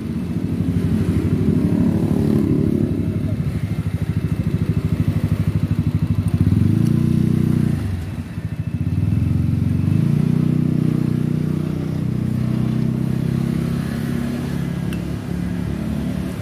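Motorcycle engine running with a fast, low, pulsing sound. It fades around eight seconds in, then picks up again about two seconds later.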